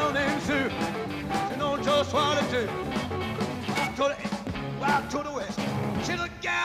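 Live rock and roll band playing, with electric guitar, and a man singing into a microphone over it.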